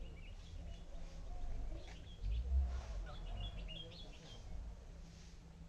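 Small birds chirping in short bursts, over a low rumble on the microphone that swells to its loudest about halfway through.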